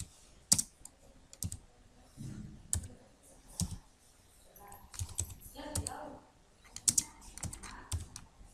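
Keystrokes on a computer keyboard: irregular typing, single clicks and short runs with pauses between them.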